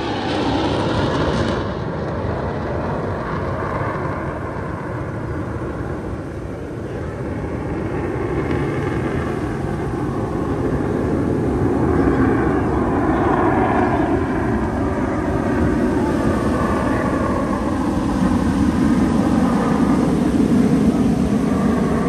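Aircraft passing overhead: a continuous engine rush with slowly sweeping tones, growing louder in the second half.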